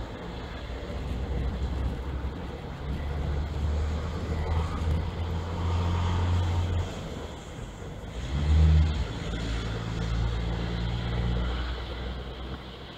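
Street traffic: vehicle engines running and passing on the road below, with one louder, low-pitched vehicle about eight and a half seconds in.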